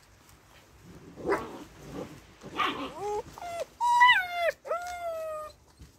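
Corgi puppies yipping and whining in rough play: a couple of rough growly yips, then from about three seconds in a series of high whines that fall in pitch, the last and longest ending about a second before the end.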